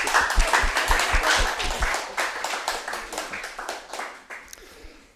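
A small group clapping, a steady patter of many hand claps that dies away near the end.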